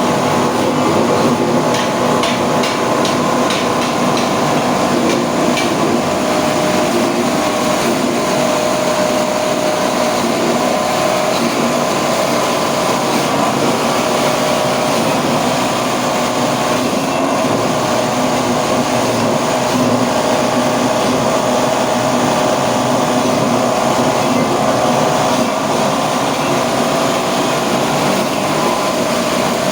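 Coconut grater and milk press machine running on its 2 hp electric motor: a loud, steady mechanical hum with a run of rapid ticks from about a second in, lasting several seconds.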